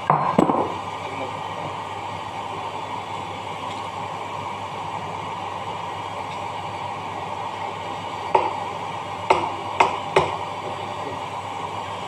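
A steady, even rushing hum runs throughout. Over it come a sharp metal knock about half a second in and four more hammer taps between about eight and ten seconds in, from a hammer working on the dough mixer's metal gearbox housing during a bearing change.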